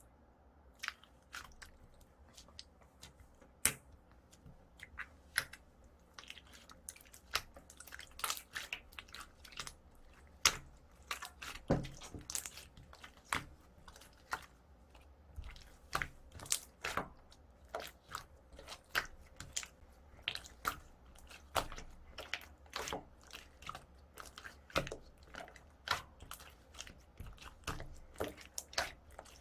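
Slime being pressed and squished by hand, giving irregular sharp crackling pops and clicks, coming more thickly after the first few seconds.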